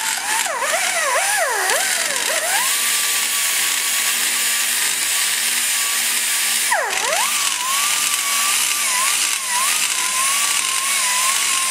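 High-speed die grinder running with a small grinding bit against the cast iron around a valve guide boss, blending it into the port. It holds a steady high pitch with a constant hiss. The pitch sags sharply a few times in the first two seconds or so and once again about seven seconds in, as the bit bites or the grinder is eased off, then climbs back.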